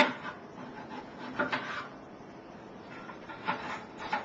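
A sharp click, then short scraping and rubbing sounds on the sink-shelf prototype, about a second and a half in and again near the end.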